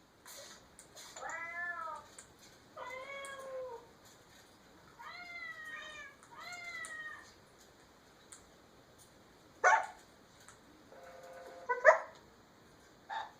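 Four drawn-out meows, each rising and falling in pitch, followed by three short sharp loud calls in the second half.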